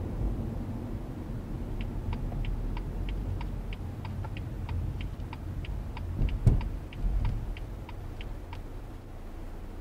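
A car's turn-signal indicator ticking steadily, about three ticks a second, over low road rumble heard inside the cabin. A single thump cuts in about six and a half seconds in.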